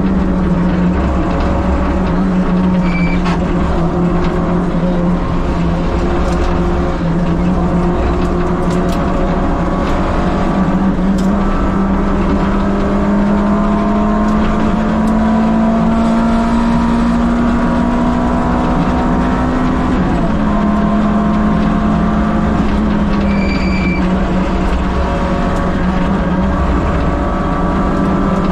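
Peugeot 205 Rallye Group A's four-cylinder engine running hard at high revs on a rally stage, its pitch creeping slowly upward for most of the time and dropping once about twenty seconds in.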